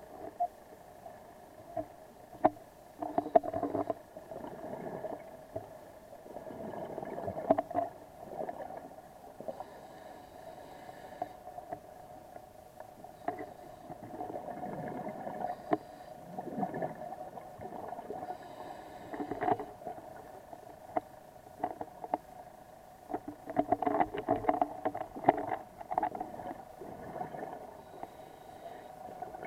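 Scuba dive audio: exhaled regulator bubbles come in rushing bursts every few seconds over a steady engine hum from a dive boat, with scattered sharp clicks.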